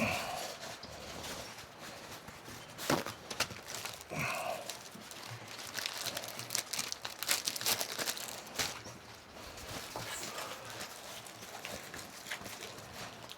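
Scattered light clicks and knocks with some crinkling, as of objects being handled and moved about, and a brief faint voice-like sound about four seconds in.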